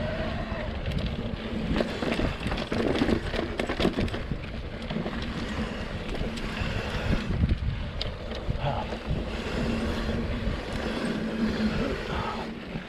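Electric mountain bike riding along a dirt trail: wind buffeting the microphone over tyres rolling on dirt and rock, with many small knocks and rattles from the bike.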